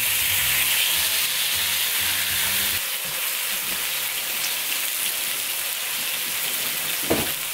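A huge 8 kg slab of beef steak searing in oil on a hot grill pan, sizzling steadily.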